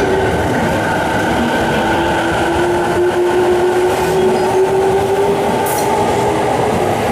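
Electric train running through the station close by: a loud rumble of wheels on the rails with a steady motor whine that slowly rises in pitch.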